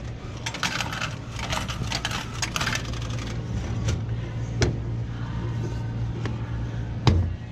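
Rattling and clicking as a hand gropes in a vending machine's pickup slot and takes out a pack of batteries, with a few sharp knocks on the slot's flap, the loudest near the end, over a steady low hum.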